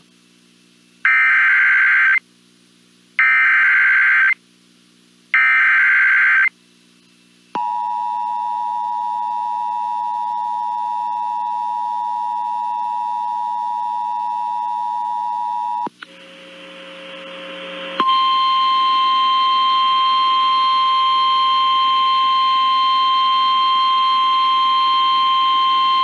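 Emergency Alert System activation: three short buzzy bursts of SAME digital header tones, then the two-tone attention signal held for about eight seconds, a brief hiss, and a single steady NOAA Weather Radio warning alarm tone held for about nine seconds, announcing a severe thunderstorm warning.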